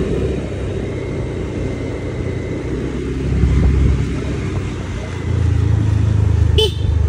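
A vehicle driving along a road: a steady low rumble of engine and tyres that grows louder about five seconds in. A short high chirp comes near the end.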